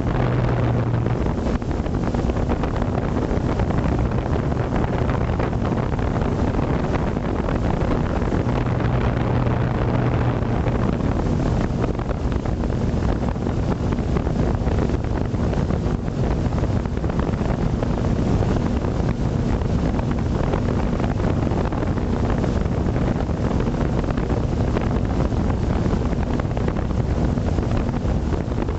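Quadcopter drone hovering: a steady rush of wind on the microphone with a low, even hum from the motors and propellers.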